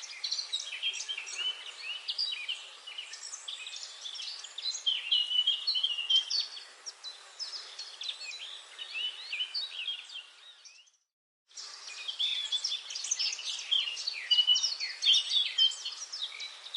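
Dense forest chorus of many songbirds chirping and trilling over a steady background hiss. It cuts out completely for about half a second some eleven seconds in, then resumes.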